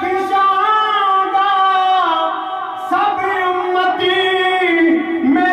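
A man singing a naat, an Urdu devotional song, into a microphone, holding long notes that bend slowly in pitch, with a short break for breath near the middle.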